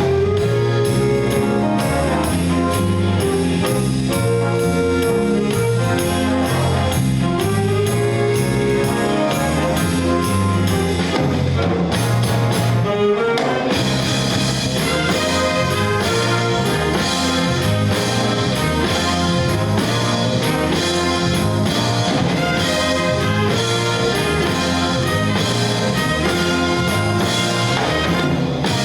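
High school jazz ensemble playing live: brass horns carry the melody over bass and drum kit with a steady cymbal beat, and the cymbals drop out briefly about midway.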